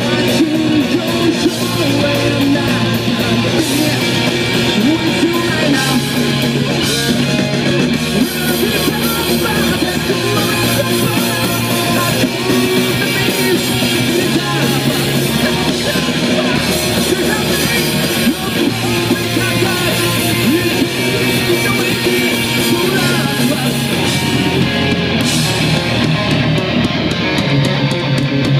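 A live rock band playing loud, with distorted electric guitars and a drum kit.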